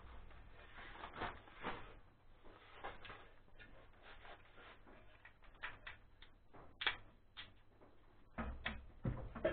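Scattered light clicks and scrapes of a small hand tool and parts being handled, with a sharper click about seven seconds in and a few duller knocks near the end.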